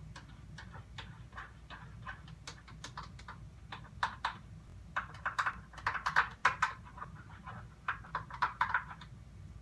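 Homemade slime being mixed by hand in a bowl: irregular wet squelching and sticky clicks, busiest from about four seconds in.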